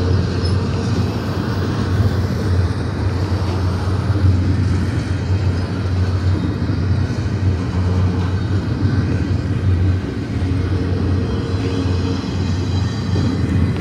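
Double-stack container train rolling past at close range: a steady, loud rumble of the well cars' steel wheels on the rails, with a faint steady hum above it.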